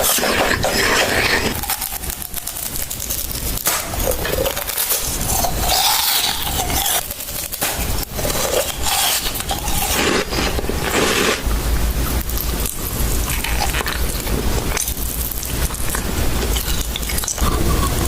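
A cat eating from a bowl: irregular crunching and scraping, with clinks against the dish.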